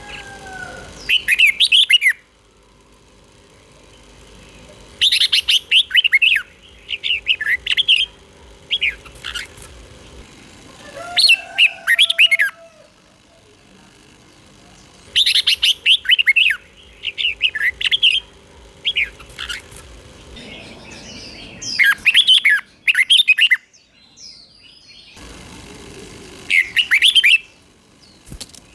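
Red-whiskered bulbul singing: short bursts of quick, bright chirping notes, one phrase every few seconds, with a faint steady hum in the gaps.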